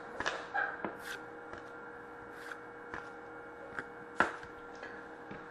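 Hockey trading cards being handled and slid through the hands, with scattered light ticks and taps, the sharpest about four seconds in, over a faint steady hum.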